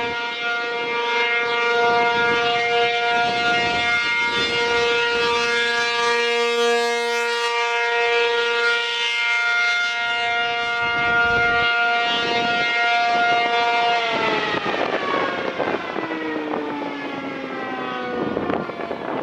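American Signal T-135AC outdoor warning siren sounding a steady tone during a test, its loudness swelling and fading. About fourteen seconds in it shuts off and winds down, its pitch falling steadily.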